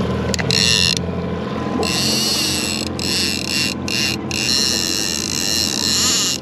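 Trolling reel's clicker ratcheting in several short runs as line pays out while a diver is let down behind the boat, the longest run about two seconds near the end. The boat's engine hums steadily underneath.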